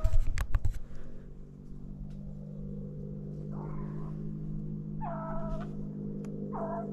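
Beagles baying on a rabbit chase: several drawn-out, wailing bays come about a second and a half apart. Right at the start there is a sudden loud bang with crackling. From about a second in, a steady music drone rises underneath.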